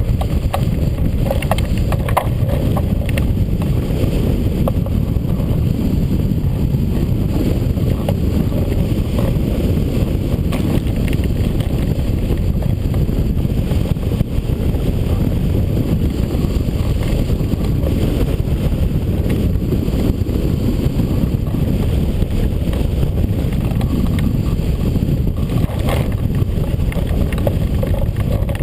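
Strong wind buffeting a GoPro camera's microphone: a loud, steady low rumble of wind noise.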